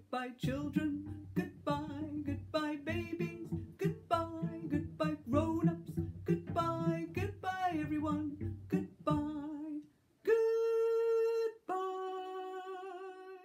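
A woman singing while plucking a cello pizzicato as accompaniment. The plucked notes stop about nine seconds in, and after a short pause the song ends on two long held notes, the second lower and with vibrato, fading out.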